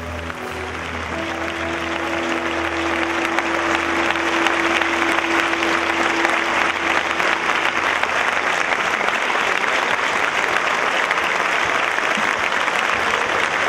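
Concert audience applauding, building over the first few seconds. The band's last held chord rings under it and dies away about eight seconds in.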